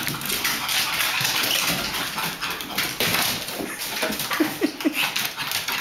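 A pug running laps on wooden floorboards: a rapid, irregular patter and scrabble of paws and claws, with a few brief whimpers about four and a half seconds in.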